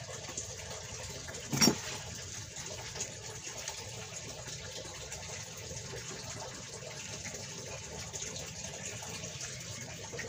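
Steady hiss of background noise, with one brief sharp knock about one and a half seconds in.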